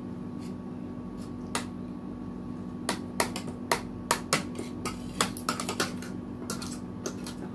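Metal forks and spoons clinking and scraping against ceramic plates and a bowl during a meal: a scatter of sharp clicks, coming in quick succession from about three to six seconds in, over a steady hum.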